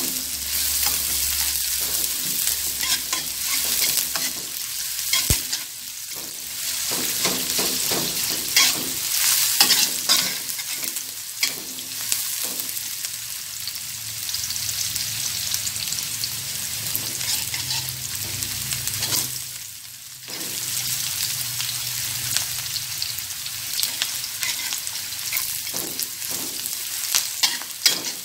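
Sliced shallots sizzling in hot oil in a wok, with a metal spatula scraping and clicking against the pan as they are stirred. The sizzle dips briefly about two-thirds of the way through.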